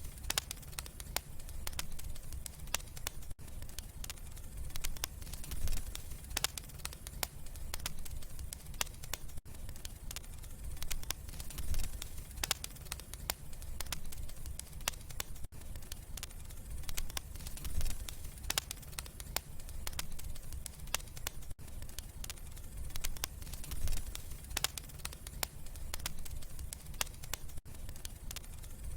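Wood fire in a fireplace crackling, with frequent sharp pops over a low rumble of flames.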